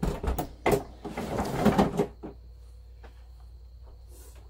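Hard plastic knocks and scraping as a wheeled plastic cooler is shoved into place against a wooden porch railing, with the loudest knock a little under a second in. After about two seconds only faint taps are left.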